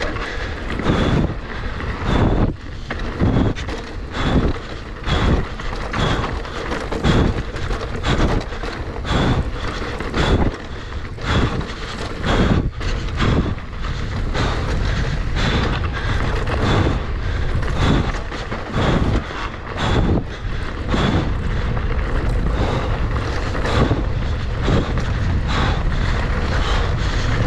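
A fast downhill run heard from a camera on the rider. Steady wind buffets the microphone, and knocks and rattles from the rough ground come about once or twice a second.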